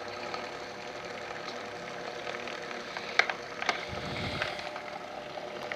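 Electric fan running with a steady hum, with two sharp clicks a little past the middle. The owner says the fan at times comes to touch something, which is why it is noisy.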